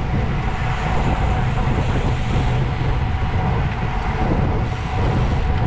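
Wind rushing over the microphone of a camera on a moving road bicycle, a steady low rumble.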